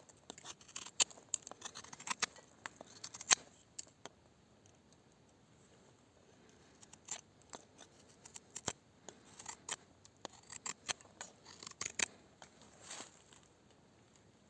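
Mora Frosts knife blade making a series of quick, sharp cuts through test material, in two bouts with a pause of a few seconds between.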